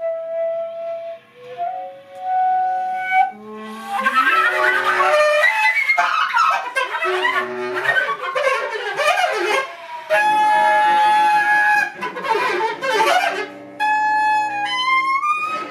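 Contemporary chamber music for woodwinds and bowed strings. Held notes open it, followed by a dense, clustered passage and a second stretch of sustained tones, then rising glissandi near the end.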